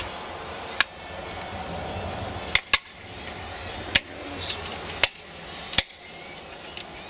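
Sharp plastic clicks and knocks as a round USB charger/voltmeter unit is pushed down into a drilled hole in a Kydex console panel: six clicks, two of them in quick succession a little before the middle.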